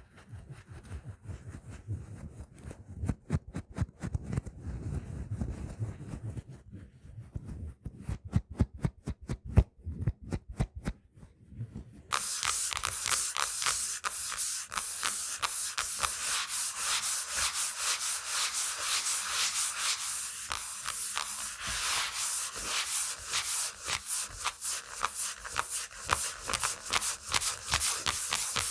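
Fingernails tapping and rubbing on an object with a dull, low sound. About twelve seconds in, they switch suddenly to fast, bright scratching on a textured surface.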